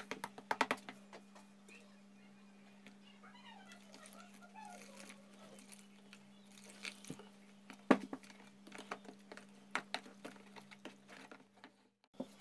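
A metal spoon clicking and scraping against a plastic tub as flour is stirred with water into a batter, with a sharper knock about eight seconds in. A steady low hum runs underneath.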